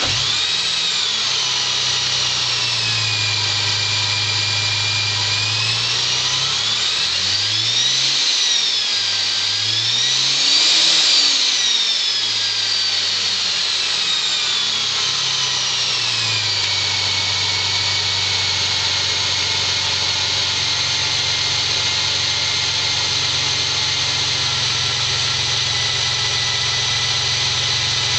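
Engine fitted with a belt-driven Whiplash centrifugal supercharger, running just after starting, with a high supercharger whine over the engine note. The revs and the whine rise and fall twice near the middle, then settle into a steady idle.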